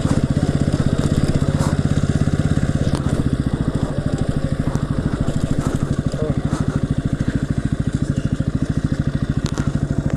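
Motorcycle engine running at low revs, a steady even putter of firing pulses.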